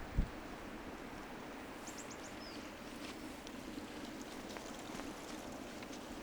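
Steady rushing outdoor noise of wind or running water, with a small bird chirping about two seconds in: four quick high notes and a short falling one. A single low thump just after the start.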